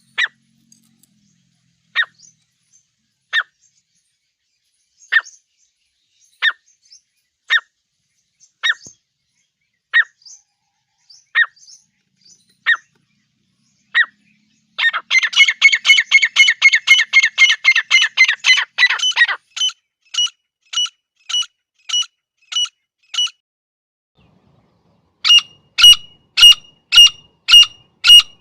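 Partridge (teetar) calls used as a hunting lure: short, sharp, high call notes repeated about once a second, breaking into a fast chattering run of notes for about four seconds in the middle, then spaced calls again, a short pause, and louder calls near the end.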